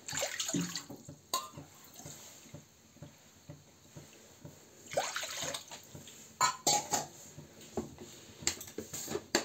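Water poured from a metal cup into an empty metal kadhai, splashing onto the pan's bottom, in a few separate pours: one in the first second and several shorter ones in the second half.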